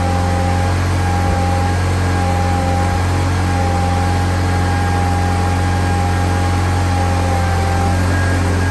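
Case Ingersoll garden tractor engine idling steadily, with a steady higher-pitched whine over the low running note.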